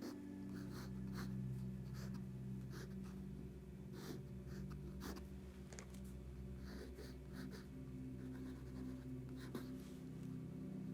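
Sketching strokes scratching on paper, short and irregular, over a steady low hum.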